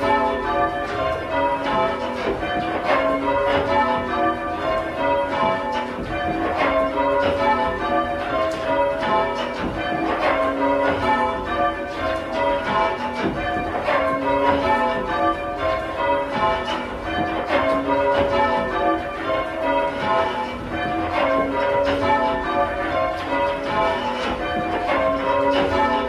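A ring of four church bells rung full circle by ringers pulling the ropes, giving a continuous, even rhythm of bell strikes.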